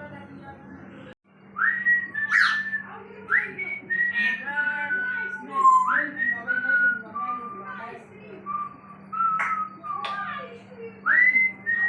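African grey parrot whistling: a string of whistled notes, each sliding up and then held at a steady pitch, mixed with short sharp squeaks. A steady low hum runs underneath, and the sound cuts out briefly about a second in.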